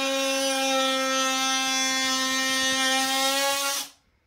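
Cordless oscillating multi-tool cutting into wooden door trim, running with a steady high whine that cuts off abruptly near the end.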